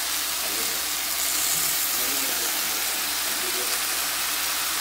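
Beef tibs with onion, green pepper and tomato sizzling in a hot frying pan: a steady hiss.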